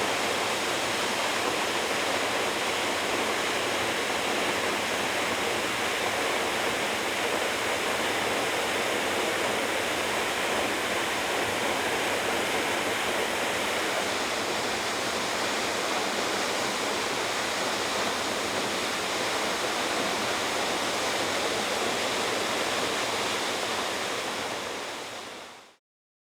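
Steady rush of a plunge waterfall with a drop of over 20 metres, its water falling straight down in one continuous roar; it fades out quickly near the end.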